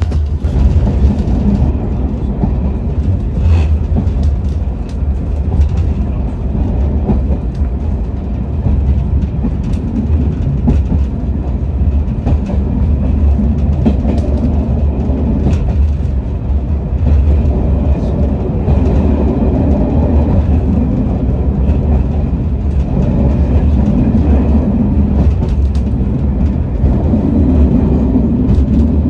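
A train running on the line: a steady, loud, low rumble with a few faint clicks.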